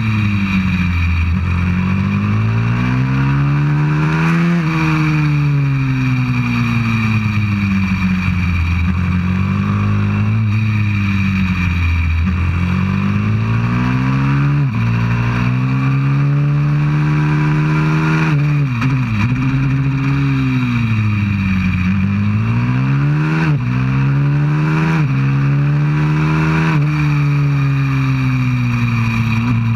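190cc pit bike's single-cylinder four-stroke engine under load on a track lap. Its pitch climbs steadily as it accelerates and falls away into the corners, over and over, with a few abrupt dips in pitch along the way.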